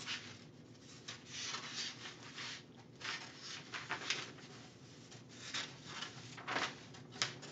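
Large sheet of sublimation transfer paper rustling and scraping as it is handled and cut by hand: a series of soft, irregular paper rustles, with a couple of sharper ones near the end.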